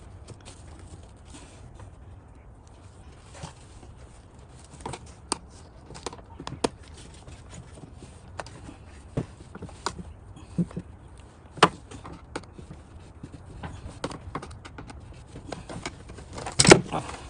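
Scattered light clicks and taps of a hand tool and plastic door trim as screws are taken out of a car's rear door panel, with a louder clatter near the end, over a low steady hum.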